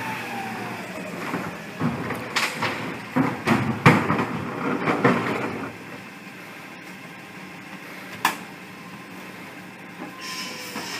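CNG-powered Mack garbage truck idling while recyclables are tipped into its McNeilus rear-loader hopper, with sharp clanks and clattering for the first several seconds. It then goes quieter, with a single knock, and near the end the engine grows louder.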